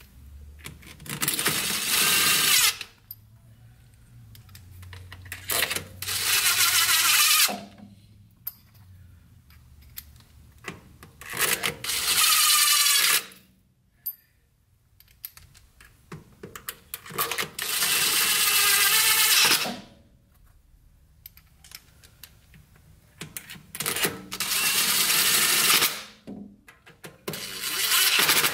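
Cordless impact driver on a light setting running in the T30 bolts of a Ford 5R55W transmission's solenoid pack. It comes in about six bursts of one to three seconds, one bolt after another, with pauses between them.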